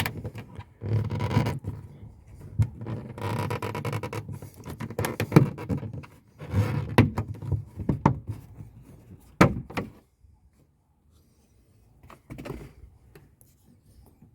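Hands pulling a plastic cover off the inside of an Audi A4 B8 door: scraping and rustling with sharp clicks and knocks for about ten seconds. After that it is quiet apart from a brief scrape near the end.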